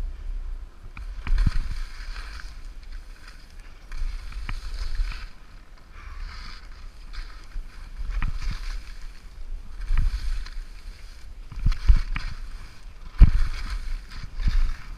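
Skis hissing as they slide and turn through soft, ungroomed snow, swelling with each turn every second or two, over a low rumble with occasional sharp thumps, the loudest near the end.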